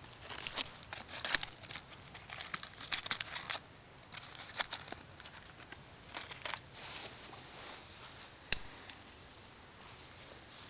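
Youth-category crackling fireworks popping: a dense, rapid crackle for about three and a half seconds, then scattered pops, with one sharp, louder crack late on.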